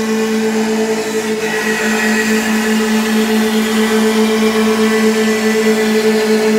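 CNC milling machine spindle driving a carbide end mill through a mahogany pattern block on a 3D roughing pass. It makes a loud, steady hum with two constant tones over the hiss of the cutter chipping wood, and a higher cutting note joins about a second and a half in.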